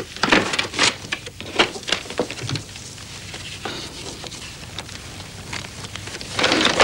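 Paper crinkling and rustling in short, irregular crackles as a folded letter is opened and handled. The crackles are densest in the first two seconds or so and pick up again near the end.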